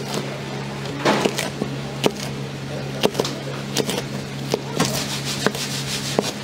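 Large kitchen knife chopping chili peppers on a plastic cutting board: a dozen or so sharp knocks of the blade striking the board at uneven intervals.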